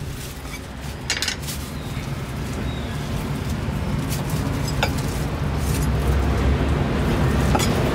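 Street market background noise: a steady low rumble with a few scattered clicks and knocks, the loudest just after a second in.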